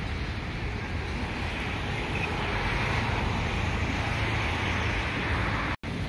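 Steady road traffic noise from a busy main road, with wind on the microphone. The sound briefly cuts out near the end.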